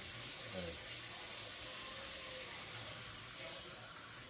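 Kitchen faucet running steadily into a stainless steel sink while raw chicken is rinsed under the stream.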